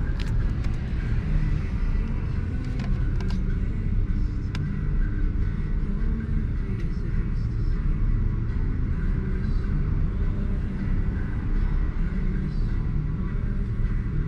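A car's engine idling, heard from inside the cabin as a steady low rumble, with a few light clicks in the first few seconds.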